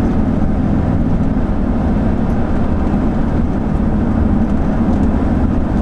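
Steady road and engine noise heard inside a moving car, a loud, even low rumble.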